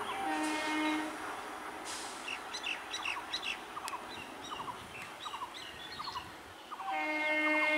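Horn of an approaching EMU electric local train: a short blast about a second in, then sounding again near the end. Birds chirp in between.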